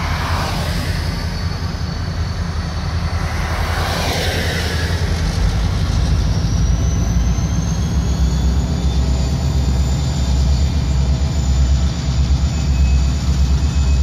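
EMD two-stroke diesel locomotives (GP40-2 and GP38-2) running with a deep, steady rumble that grows louder after about eight seconds. A car passes on the road right at the start and another about four seconds in. From about six seconds a faint high whine rises slowly.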